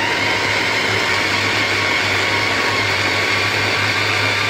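SilverCrest electric mini chopper running steadily, its blade whirring through fresh tomatoes to blend them to a purée.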